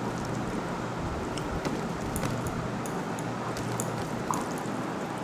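Quiet eating sounds, faint scattered clicks and smacks, over a steady low hum and hiss.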